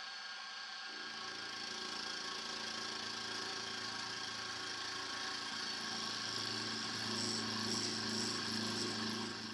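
Benchtop milling machine running, its fly cutter with a WNT octagonal OFHT insert face-milling a steel block. Over the machine's steady whine, a lower rough cutting sound comes in about a second in as the insert bites into the steel, and grows a little louder toward the end.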